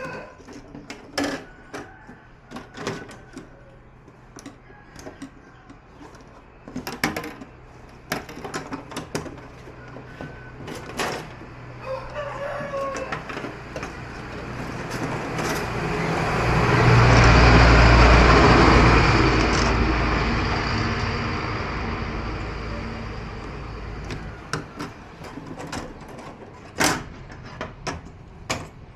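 A rooster crowing in the background among scattered clicks and knocks of small parts being handled. Partway through, a loud rushing noise with a low rumble swells up over a few seconds and fades away.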